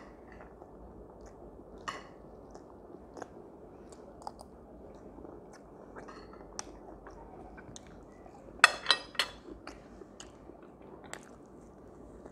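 Close-up chewing and eating sounds, with scattered small clicks and crunches. About nine seconds in come three loud, sharp clicks in quick succession.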